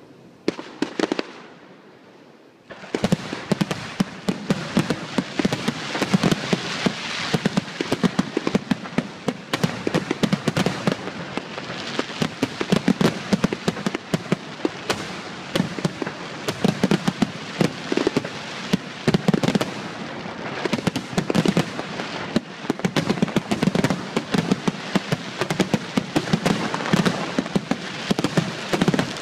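Aerial fireworks display: a few scattered shell bursts, then from about three seconds in a dense, unbroken barrage of rapid bangs and crackling.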